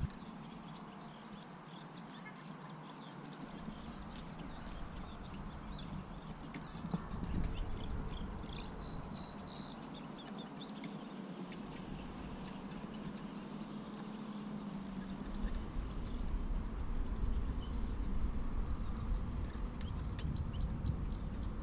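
Outdoor marsh ambience: small birds chirp in short high notes, thickest in the middle of the stretch, over a low rumble of wind on the microphone that comes and goes in gusts.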